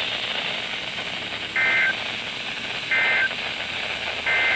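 Emergency Alert System end-of-message signal on NOAA Weather Radio: three short two-tone digital data bursts about 1.4 s apart, over steady receiver hiss, marking the end of the alert broadcast.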